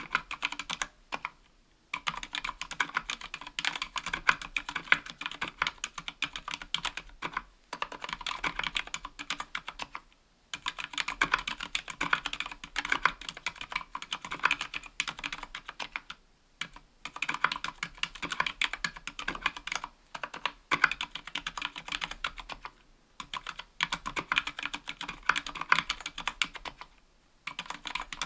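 Continuous typing on a KBDfans Tofu 60% aluminum-plate mechanical keyboard with Gateron Silent Black Ink linear switches and GMK keycaps: a dense run of key strikes, broken every few seconds by brief pauses.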